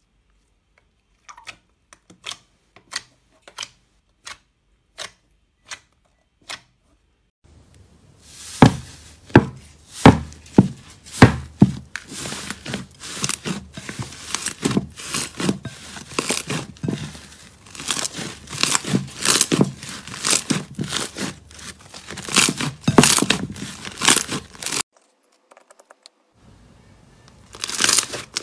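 Hands working slime: a few sparse sticky pops at first, then a long run of dense crackling, tearing pops as a thick slime is pressed and kneaded. The crackling stops for about a second near the end, then starts again.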